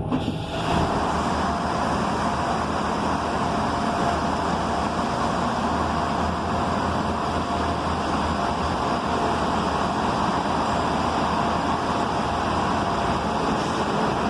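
Steady road-traffic noise of moving vehicles that comes in suddenly at the start and then holds level, with a faint steady hum through it.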